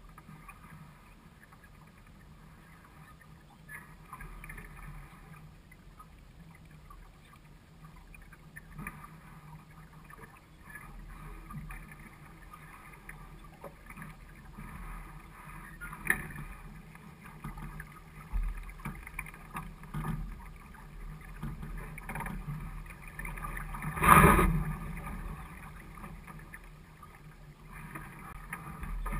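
Water rushing and lapping along a small sailboat's hull as it sails, with scattered knocks. One loud knock comes about three-quarters of the way through.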